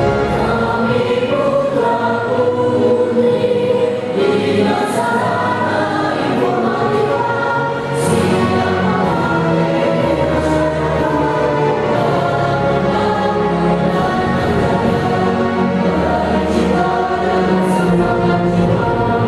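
A choir singing in sustained notes over instrumental accompaniment.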